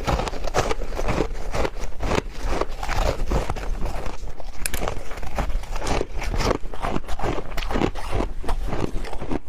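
Ice being bitten and crunched between the teeth close to the microphone: a dense, irregular run of sharp crunches, several a second.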